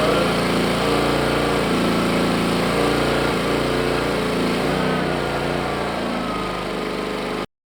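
Pulsar G450RN inverter generator's small petrol engine running, its speed rising and falling slightly. The sound cuts off suddenly near the end.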